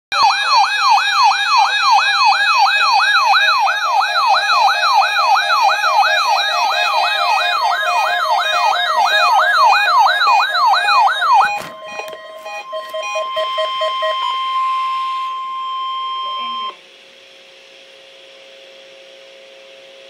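Weather radio receivers set off by a required weekly test: a loud, fast warbling siren, about two to three sweeps a second, for the first eleven seconds or so. After a few clicks it gives way to a steady weather radio warning alarm tone, with a short run of quick beeps under it, which cuts off about three quarters of the way through and leaves a faint hum and hiss.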